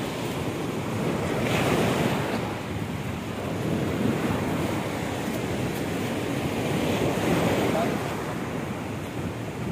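Waves washing onto the shore, with wind buffeting the microphone: a steady rushing that swells twice, about a second and a half in and again later on.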